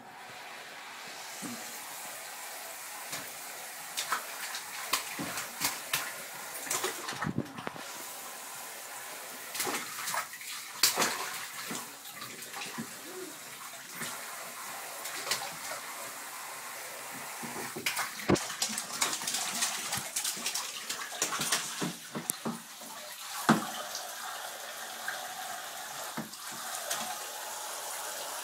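Bathwater splashing and sloshing in a bathtub as a toddler slaps and paddles his hands in it, many short splashes over a steady rush of water.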